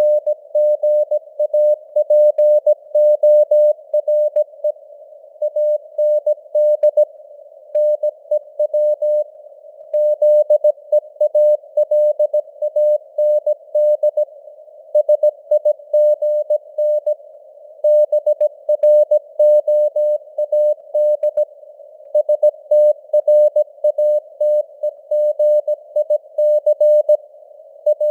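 Morse code (CW) news text sent at 17 words per minute: a single mid-pitched tone keyed on and off in rapid dots and dashes, in a narrow band of simulated radio hiss, with the signal strength rising and falling as simulated fading (QSB).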